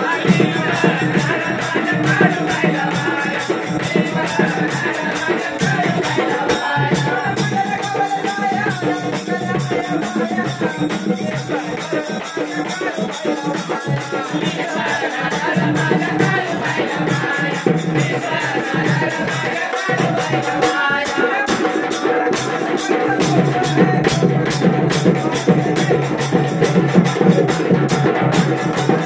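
Marathi devotional song to the goddess Kalubai: a woman singing over a large frame drum beaten with two sticks and a shaken rattle. The drum strokes come through more sharply in the last few seconds.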